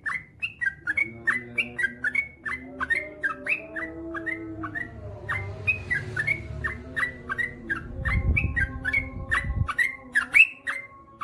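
Yellow-vented bulbul (trucukan) singing a long, fast run of short whistled notes, about three or four a second. A low rumble sounds for a couple of seconds in the second half.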